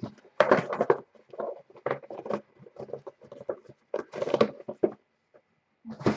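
Irregular light tapping and rustling from hands handling things on a desk, a string of short uneven knocks and rustles.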